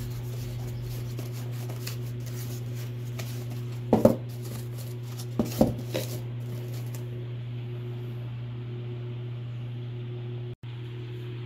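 Corrugated cardboard handled by hand, a few short rustles and knocks about four and six seconds in, over a steady low hum. The sound cuts out for a split second near the end.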